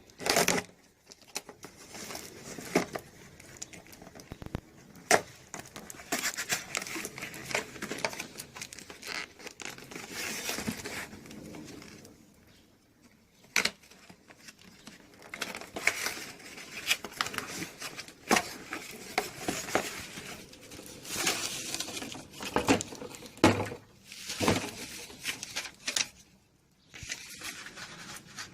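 Parcel packaging being torn open and crumpled by hand, in uneven rustling spells broken by sharp clicks and crackles, with two short pauses.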